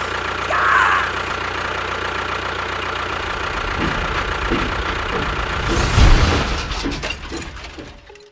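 A small engine running steadily with a rattly, knocking sound. There is a short high squeak just under a second in and a loud thump about six seconds in, and the sound fades out near the end.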